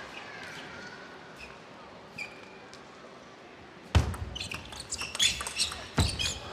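Table tennis rally: after a few quiet seconds, a sharp hit about four seconds in starts a quick run of clicks as the celluloid-type ball strikes the bats and the table, with another loud hit near the end.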